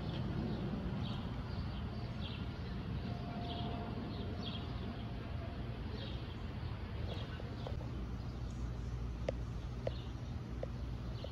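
A small bird chirping repeatedly, short high chirps coming every half second to a second, over a steady low rumble. A few light clicks near the end.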